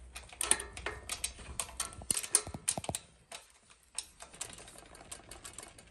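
Light metallic clicks and clinks of a wrench working a nut on a bolt of a bicycle battery-box bracket, many quick ones for about three seconds, then a short pause and a few more.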